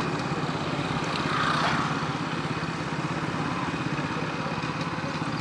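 Motorcycle engine running steadily at low speed, heard from the rider's position with wind and road noise.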